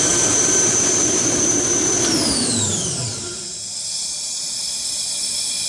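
Quincy 30 hp rotary screw air compressor running with a loud high-pitched whine, then shutting down about two seconds in: the whine and the lower hum fall in pitch together over about a second as the machine winds down, leaving a steady hiss.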